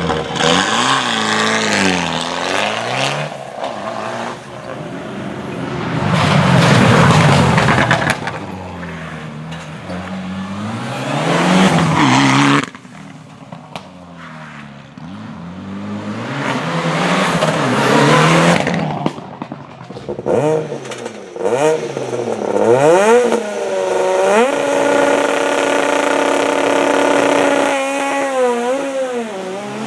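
Rally car engines revving hard, the pitch climbing and falling again and again through gear changes as cars go by in turn. The sound breaks off abruptly about twelve seconds in before the next car is heard.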